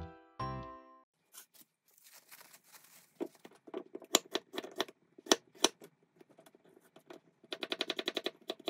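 Kitchen knife cutting a carrot on a wooden cutting board: separate knocks of the blade through the carrot onto the board, spaced out at first, then a quick steady run of chops near the end.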